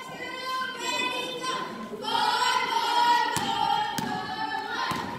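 High-pitched voices singing in long held notes, phrase after phrase, with a basketball bouncing on the gym floor a few times in the second half.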